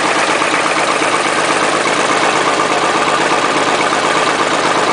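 Caterpillar D6B crawler bulldozer's diesel engine running steadily.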